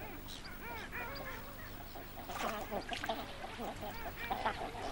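Ducks calling: a run of short notes that rise and fall in pitch, sparse at first and growing busier and louder about halfway through.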